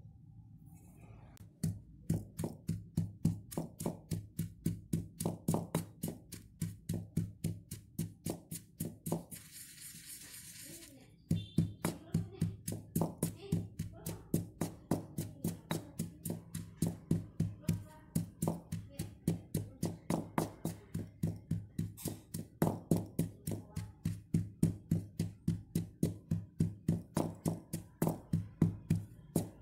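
Stone pestle pounding toasted grated coconut in a stone mortar (cobek), a steady run of dull thuds about three a second, pausing for about two seconds partway through.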